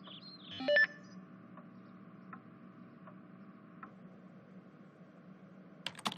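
A short electronic beep like a phone tone, about a second in, over a few fading bird chirps. After it comes a faint steady hum with occasional light ticks and a few clicks near the end.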